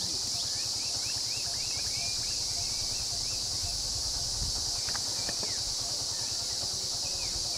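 Steady high-pitched insect drone, with a quick run of small bird-like chirps in the first two seconds and a few more later, over a low rumble.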